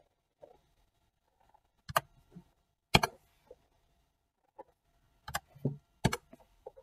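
Computer keyboard keystrokes: a few sharp, separate key taps spread over several seconds, with fainter clicks between them.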